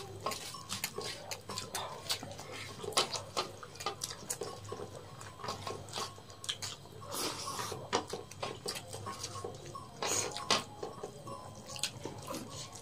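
People eating rice and egg curry with their hands: mouth sounds of chewing and lip-smacking mixed with fingers working rice on steel plates, a steady run of irregular short clicks and smacks.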